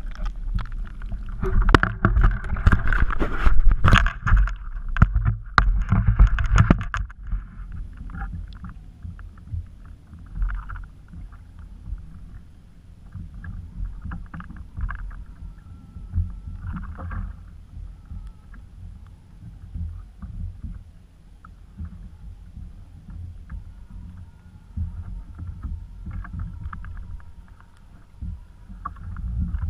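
Water splashing and sloshing loudly, with sharp knocks, for about the first seven seconds. Then a steady low rumble of water moving against a kayak hull, with faint light knocks.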